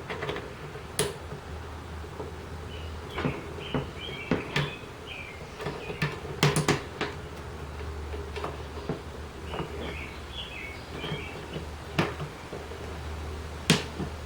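Scattered clicks and knocks of hand work on a riding mower's engine and fuel parts, with two short spells of high chirping and a steady low hum underneath.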